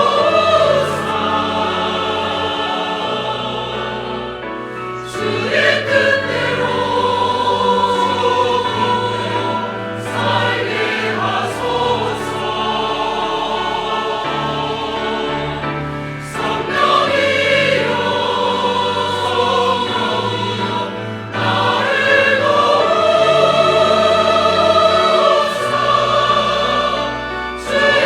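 Church choir singing a Korean hymn anthem in sustained phrases over an instrumental accompaniment with a steady low bass.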